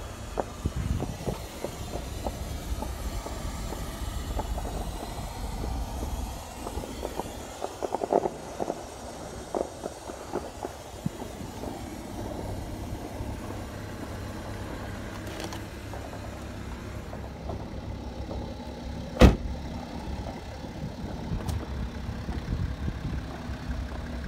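Handling rustle and small knocks from a phone being moved around inside a BMW 640d Convertible, then one loud sharp slam about three-quarters of the way through, a car door shutting. A low, steady engine hum under it in the later part, the 640d's diesel straight-six idling.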